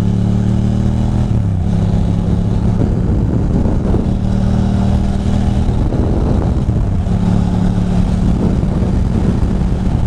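Ducati Monster 620's air-cooled L-twin engine running steadily at cruising speed, heard from the saddle with wind rush over it. The engine note dips briefly about one and a half seconds in, then settles back to a steady drone.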